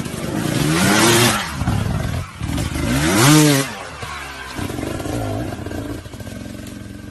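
Two-stroke motocross bike engine revved up and back down twice in quick sweeps, then running at a lower, steadier speed.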